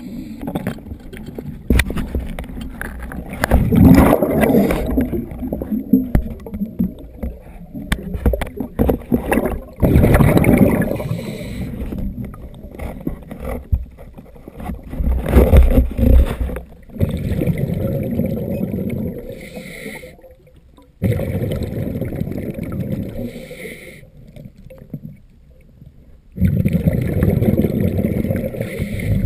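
A scuba diver breathing through a regulator underwater: bursts of gurgling exhaled bubbles every five or six seconds, with quieter gaps while he breathes in, muffled through the camera's underwater housing.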